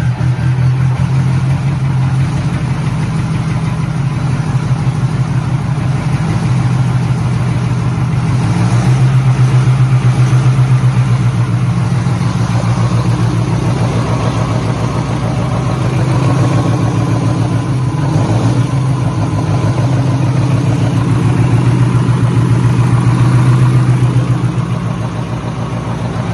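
Detroit Diesel 16V149 V16 two-stroke diesel engine of a 1600 kW Kohler generator set running steadily, with a fast, even firing pulse.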